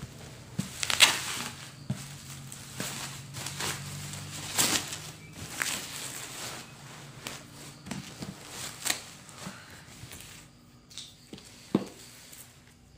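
A shipping package being unwrapped by hand: irregular rustling and sharp crackles of bubble wrap and packing material being handled and pulled apart.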